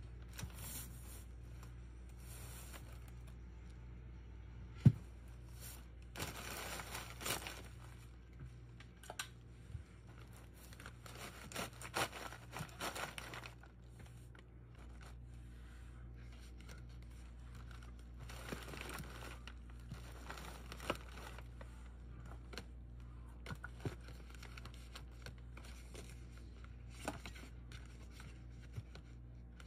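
Plastic gift wrapping crinkling and rustling in several bursts as items are handled and packed into a woven basket, with a few light clicks and one sharp knock about five seconds in.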